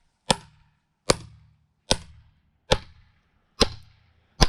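Steel mini sledge striking the back of a froe blade six times at an even pace, about one blow a second, driving it into the end of a small log to split it. Each blow is a sharp metallic crack with a short ring.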